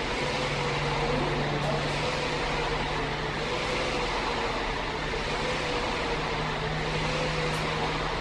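Dragon boat paddle ergometer's air-resistance flywheel spinning under continuous paddle strokes: a steady whir with a low hum.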